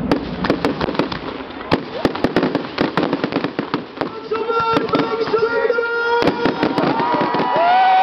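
Fireworks display going off: rapid crackling and sharp bangs, with held high tones joining about halfway and a long held tone coming in near the end.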